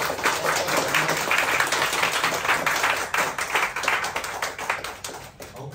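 A small group of people applauding, many hands clapping at once, the clapping thinning out and fading away near the end.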